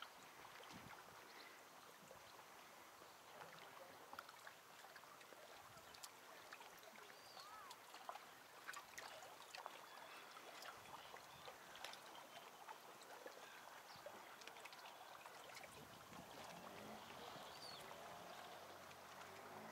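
Near silence: faint outdoor ambience, a soft even hiss with many small scattered clicks and a few brief high chirps.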